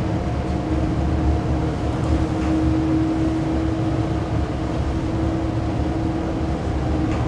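Steady drone of the tug's engines and drives heard inside the wheelhouse, a low rumble with an even hum running through it.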